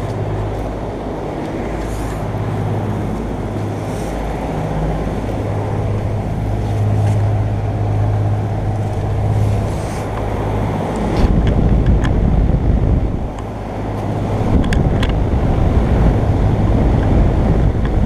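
Large commercial heat pump outdoor units running in heat mode: a steady compressor hum under the air rush of the condenser fans, louder from about eleven seconds in as the spinning fans come close.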